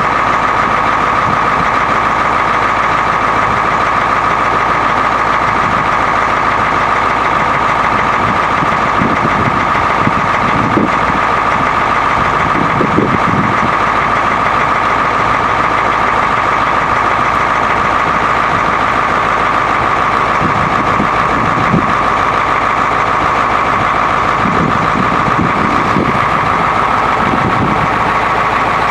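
Ford 6.9L diesel V8 running steadily to drive the Versalift bucket's hydraulics while the boom is raised, with a steady high whine throughout and a few irregular low surges.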